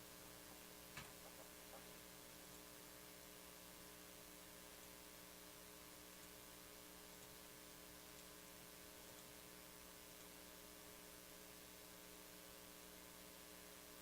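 Near silence with a steady electrical hum, and a single faint click about a second in, followed by two softer ticks.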